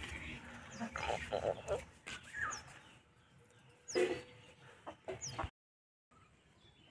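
Chickens clucking now and then, with a few brief high bird chirps.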